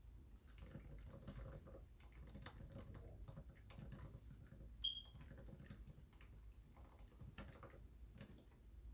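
Faint typing on a computer keyboard, with irregular runs of keystrokes. A short high tone sounds just before the five-second mark.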